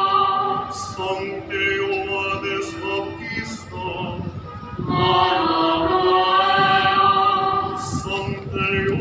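A choir singing a slow funeral hymn in long held notes, easing off about four seconds in before a new phrase begins about a second later.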